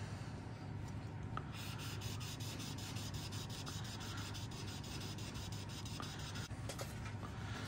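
Cloth rubbing Silvo polish onto a hard-plastic starburst clock spike in quick, even back-and-forth strokes, starting about a second and a half in and stopping near the end.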